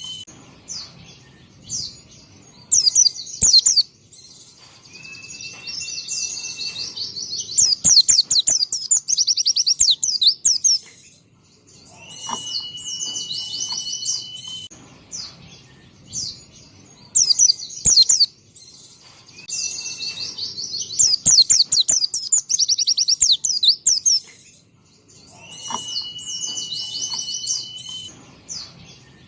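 White-eye (pleci) singing a repeated song phrase: a steady, high, held whistle, then a burst of rapid, very high chattering trills, about every eight seconds.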